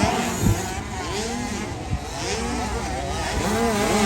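Several small 50cc motocross bikes racing at once, their engines revving up and falling back over one another, with a few short thumps.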